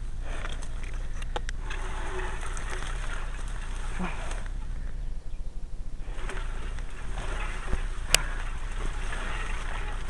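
Crop stalks and long grass rustling and brushing against the camera and bike as they are pushed through, with scattered light clicks, a brief lull about five seconds in, and a sharp click about eight seconds in, over a steady low hum.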